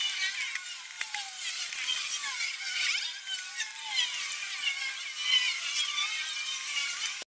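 A knife chopping tofu on a wooden cutting board, giving a few sharp taps, over a steady background of short, wavering high-pitched chirps.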